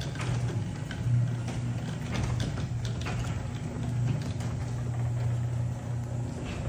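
Sectional garage door, its hinge freshly refitted, travelling on its opener: a steady motor hum with irregular clacks and rattles from the door moving along its tracks.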